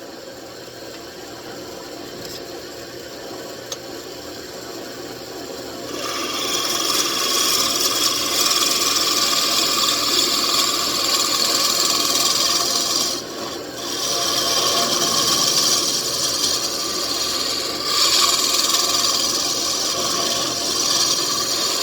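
Wood lathe running with its motor humming, then from about six seconds in a turning chisel cutting into the spinning mahogany with a steady loud scraping hiss as the piece is tapered, pausing briefly twice.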